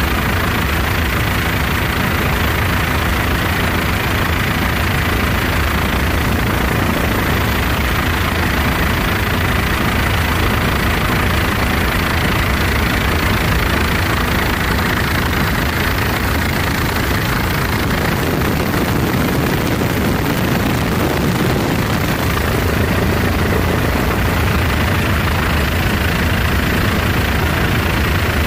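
Helicopter in flight: steady, unchanging engine and rotor drone with a faint high whine.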